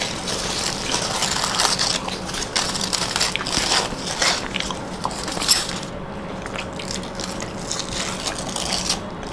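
Close chewing and biting of homemade chicken rolls eaten fast, a dense irregular munching that thins out after about six seconds, over a faint steady hum.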